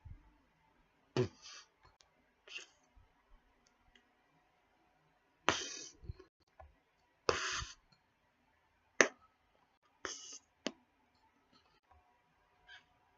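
Bubble gum mouth sounds: about ten short wet smacks and snaps at irregular intervals, the sharpest a single crisp snap near the two-thirds mark.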